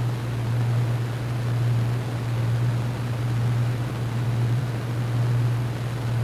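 A steady low hum with a faint hiss above it, swelling and easing gently every second or two.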